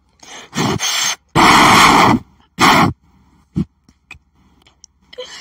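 A person's loud, breathy bursts close to the microphone, three in a row with the middle one the longest, followed by a few faint clicks.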